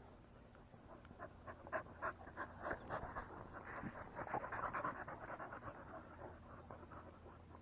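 An American bully dog panting close to the microphone, quick rhythmic breaths at about four a second. The breaths start about a second in, are loudest in the middle and fade near the end.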